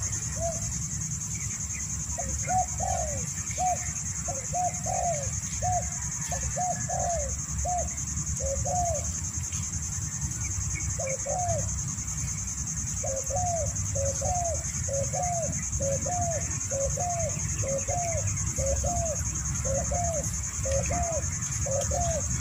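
Spotted dove cooing: a long run of short, arched coos about two a second, breaking off twice for a second or so near the middle.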